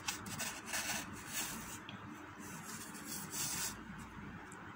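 Faint rubbing and rustling from hands handling the badge and phone, over a steady low hiss.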